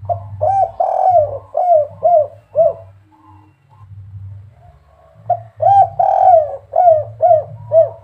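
Spotted dove (derkuku) cooing its 'kuk 3' song, the type kept by Indonesian dove hobbyists. Two phrases, each a quick run of short, arched coos with one longer coo in the middle; the second phrase starts about five seconds in.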